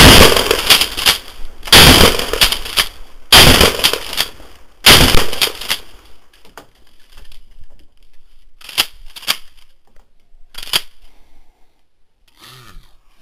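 Mossberg Model 88 pump-action shotgun firing 3-inch turkey loads: four loud shots in quick succession, about a second and a half apart, each with a ringing tail. A few sharp, much quieter clicks follow about nine to eleven seconds in.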